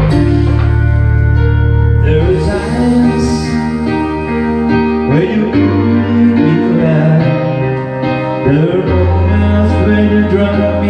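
A song with singing played over Bluetooth through a Joson Moon power amplifier and wooden-cabinet karaoke speakers, heard in the room, with steady sustained bass notes.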